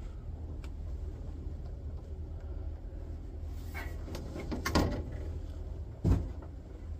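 The detached outer cover of a multi-drive CD burner tower being carried and put down: scraping and rattling around 4 seconds in with a sharp knock, then a single heavy thud about 6 seconds in as the cover is set down. A steady low hum runs underneath.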